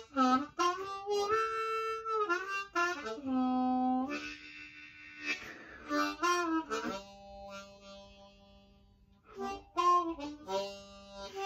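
Diatonic harmonica played with cupped hands: short phrases of chords and single notes, several bent in pitch and released, then a long low note held and fading about seven seconds in before quicker phrases pick up again.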